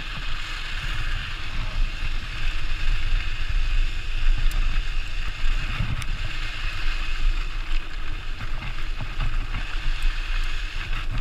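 Mountain bike rolling fast over a rough dirt trail: steady wind noise on the microphone over a low tyre rumble, with a few sharp clicks and rattles from the bike over bumps.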